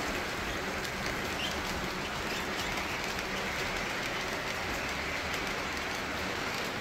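Model trains running on the layout's track: a steady rolling rumble and hiss of wheels on the rails, with light clicks as the cars pass over the rail joints.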